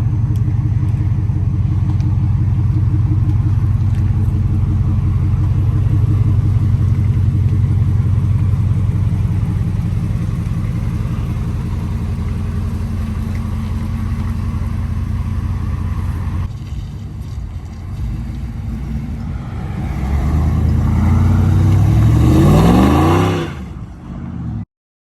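Ford Lightning pickup's V8 engine running steadily for about sixteen seconds. It then revs up with a rising pitch for a few seconds, drops back and cuts off suddenly near the end.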